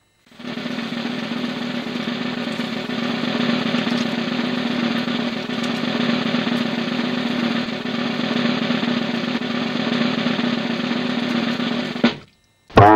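A sustained drum roll that starts abruptly and runs steadily for about twelve seconds, then cuts off. Just before the end, a loud, low, buzzing pitched note begins.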